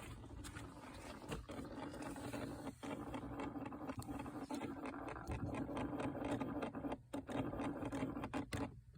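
Scratching noise in a 2006 second-generation Toyota Prius, which the owner traces to the gas pedal: a steady low hum with irregular scratchy crackling over it, dropping out briefly a few times. Others have suggested a failing ABS pump or inverter pump, but he could not hear it from under the hood.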